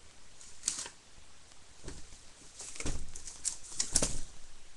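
Cardboard box being opened by hand: the lid scrapes and knocks as it is pulled off the box, with several sharp scrapes and taps, the loudest near the end.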